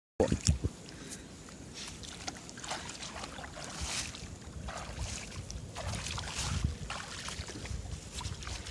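Wind rumbling on the microphone, with light splashing and sloshing of feet wading through shallow water. A few louder knocks come just after it starts.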